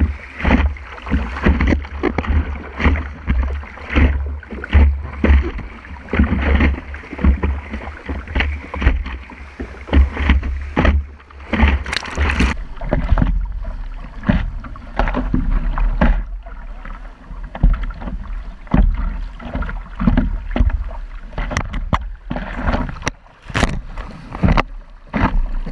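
Water rushing and splashing against a surfboard-mounted action camera as the board rides through small breaking surf, over a constant low rumble on the microphone. A wave washes over the camera about twelve seconds in, the loudest splash.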